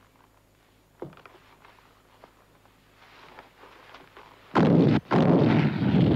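A single thud about a second in, then, about four and a half seconds in, a sudden loud burst of rapid bangs and cracks that breaks off for a moment and starts again.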